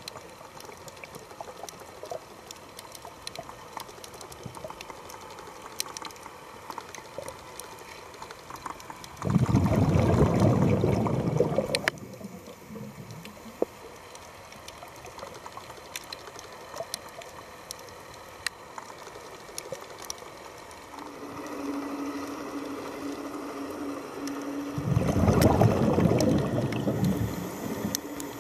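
Underwater sound of a scuba diver's exhaled bubbles rushing past the camera housing, twice: about nine seconds in for a few seconds, and again near the end. Between them, a steady crackle of small clicks, and a faint steady hum shortly before the second exhalation.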